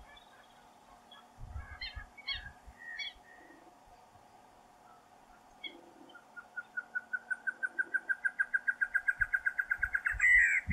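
Female great antshrike (Taraba major) singing: a series of hooting notes that speed up, rise slightly in pitch and grow louder over about four seconds, breaking into a harsh snarl near the end. A few short chirps come in the first few seconds.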